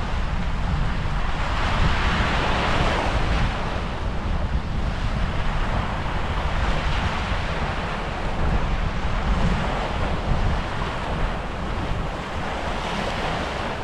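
Surf washing onto the beach, with wind buffeting the microphone as a low rumble. The wash of the waves swells about two seconds in and again near the end.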